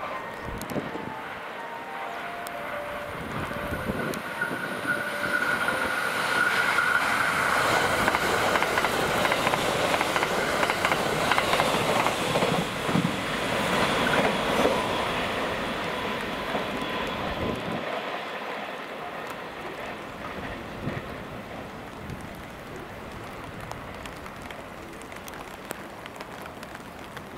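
A JR West 681 series electric limited express train runs past at speed, its wheels clacking over the rail joints. The sound grows to its loudest in the middle as the train goes by, then fades as it runs away. A short run of falling chime notes comes right at the start, and a steady high whine runs through the loudest part.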